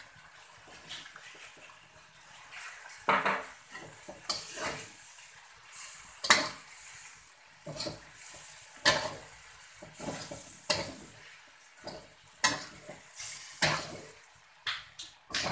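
Metal spatula scraping and clanking against a steel wok as noodles are stir-fried: sharp strokes about every second or so, starting about three seconds in, over a faint sizzle from the hot wok.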